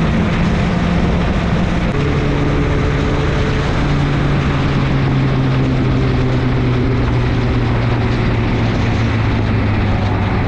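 Honda CBR1000RR inline-four sportbike engine running under way, with wind rush. Its note drops in steps about two and four seconds in, then slowly sinks lower.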